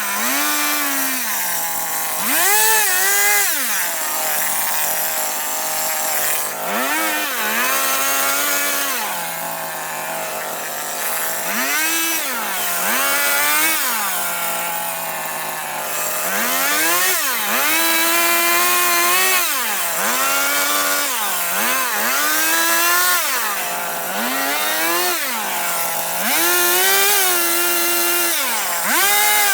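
Chainsaw carving into wood: the engine revs up into short cuts and drops back to idle between them, over and over, some cuts brief and some held for a couple of seconds.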